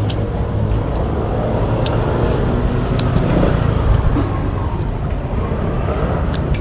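Steady road traffic noise, a low rumble of passing cars and motorbikes, with a few light clicks over it.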